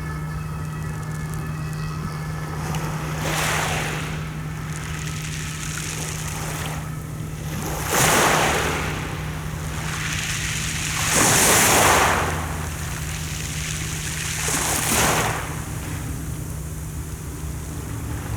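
Sea waves washing onto the shore, four surges about every three to four seconds, the third the loudest, over a steady low hum.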